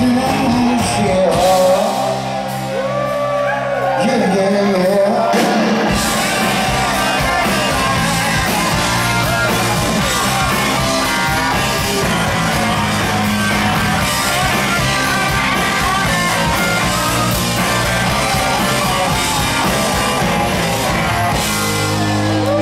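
Live rock band playing in a large hall: a male lead vocal over electric guitar and drums near the start, then after a few seconds without bass the full band comes back in about six seconds in and plays on loud.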